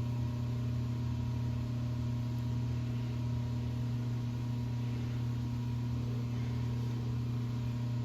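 Metal lathe running with a steady, even hum.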